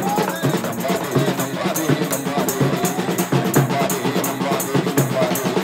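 A Tamil Christian song performed live: a large stand-mounted drum and a tambourine keep a steady beat, the tambourine's jingles ringing on each stroke from about a second and a half in, while a man sings through a handheld microphone and a portable PA speaker.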